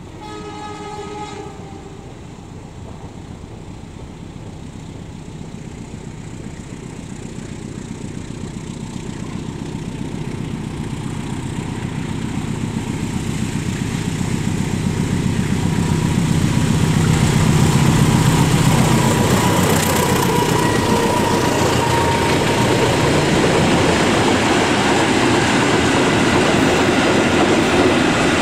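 Diesel locomotive sounds a short horn blast, then its engine grows steadily louder as it approaches hauling a train of ballast hopper wagons. After the locomotive passes, the wagons roll by with a rhythmic clickety-clack of wheels over the rail joints.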